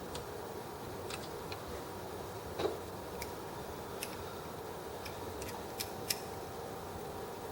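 Scattered small clicks and taps of metal parts and tools being handled on a sewing machine, with one louder knock about two and a half seconds in, over a faint steady hum.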